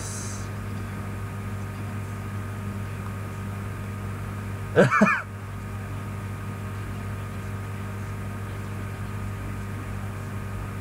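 Steady low electrical hum. About five seconds in, a short burst of a man's laughter, three quick peaks in under half a second.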